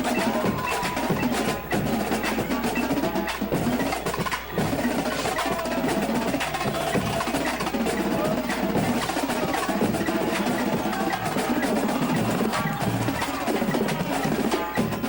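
Indoor percussion ensemble playing: rapid drum strokes and rolls over pitched mallet-keyboard notes, dense and unbroken.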